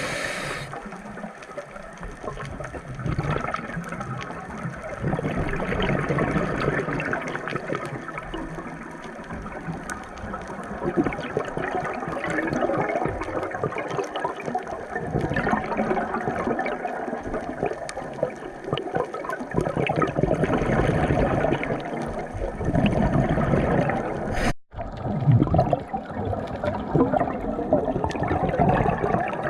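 Moving water sloshing and splashing, swelling and ebbing every few seconds, with a sudden brief dropout about 24 seconds in.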